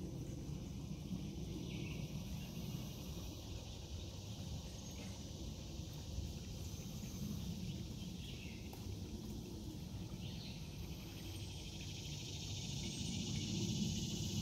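Steady high-pitched chorus of frogs and insects, with a few short calls standing out, growing a little louder near the end.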